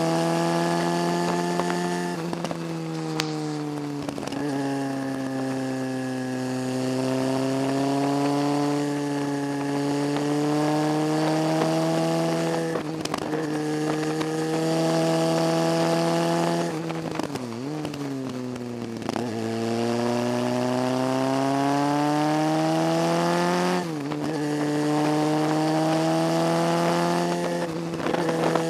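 Motorcycle engine pulling up a winding mountain road. The revs climb slowly and drop at gear changes several times. About two-thirds of the way through there is a short dip with a couple of quick rises and falls in revs.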